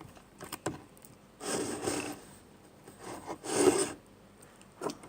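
Slime mixture being scraped and rubbed: two longer scraping sounds, about a second in and again past the middle, with a few light knocks.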